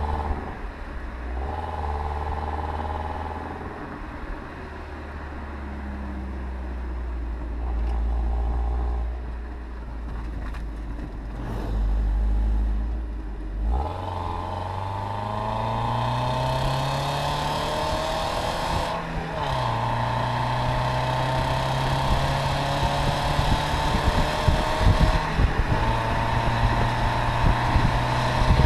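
Audi A4 B5 Avant's 1.8-litre four-cylinder engine through its stock exhaust while driving. It holds a steady low drone, then about 14 seconds in its pitch climbs steadily for about five seconds under acceleration. The pitch drops suddenly at a gear change and holds steady again, with irregular low buffeting near the end.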